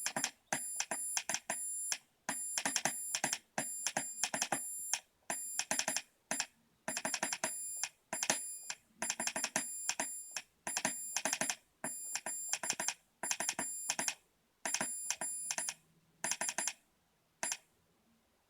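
Morse code sent by hand on a Bulgarian army straight key: a high electronic sidetone beeping on and off in short and long elements, grouped with brief pauses between characters and words, with a click at each press and release of the key.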